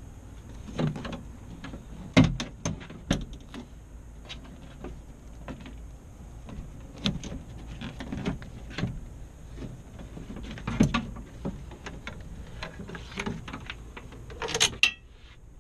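Scattered clicks, knocks and rattles of a car window regulator assembly and its wiring being handled and worked loose inside the front door of a Nissan Murano, with a louder clatter near the end as the regulator is pulled out through the door opening.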